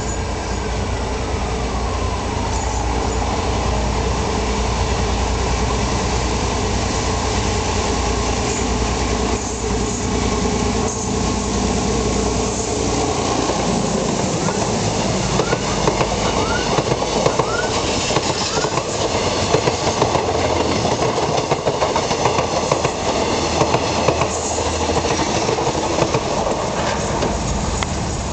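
YDM4 diesel-electric locomotive passing under power, its engine working hard with a heavy low rumble through the first half. A whine falls in pitch over the first few seconds. Then the passenger coaches roll by with a dense, rhythmic clatter of wheels over rail joints and a few brief wheel squeals.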